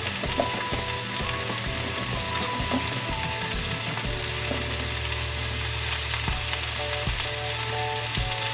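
Pork belly, onion, garlic and tomato sizzling steadily in a pot in rendered pork fat, with no added oil. Sliced bitter gourd is dropped in on top with a few soft thumps.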